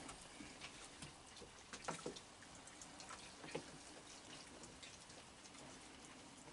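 Quiet dripping of rain, with a few soft clicks and ticks.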